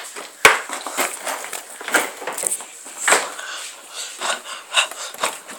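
Handling noise: irregular rustling and soft knocks as a handbag and the phone are handled, with one sharp click about half a second in.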